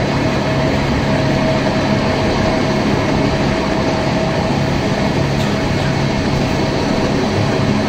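Gornergrat rack-railway electric train running on the track, a loud steady noise with a thin steady whine over it.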